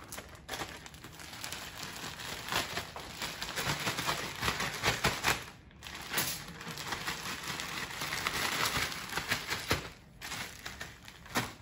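Plastic zip-top bag crinkling and rustling as zucchini strips are shaken inside it with grated Parmesan and dried herbs to coat them. The shaking stops briefly about halfway through and again near the end.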